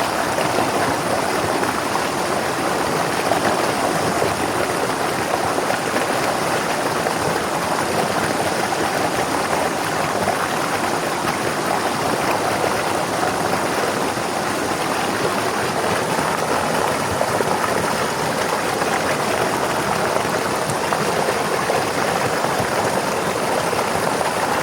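River water flowing steadily over rocks, a continuous even rushing and babbling.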